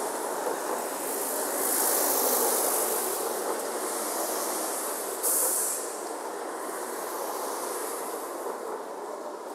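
Ambience of a busy city intersection in front of a station: a steady hubbub of traffic and street noise. A hiss swells about two seconds in, and a sudden short, loud hiss comes about five seconds in.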